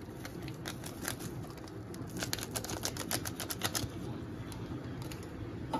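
Instant noodle cup packaging being handled, a light, rapid crackling. It comes as a quick run of faint ticks, densest from about two to four seconds in.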